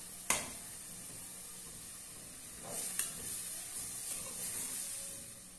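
Sardines and seasoned sauce sizzling in an aluminium pot while a metal slotted spoon stirs them. The spoon knocks sharply against the pot about a third of a second in and again about three seconds in, with scraping in between.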